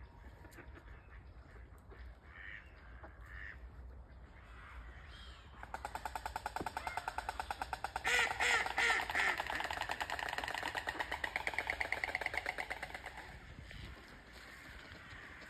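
White stork clattering its bill: a rapid, even rattle of roughly a dozen strokes a second that starts about six seconds in, is loudest a couple of seconds later, and stops shortly before the end.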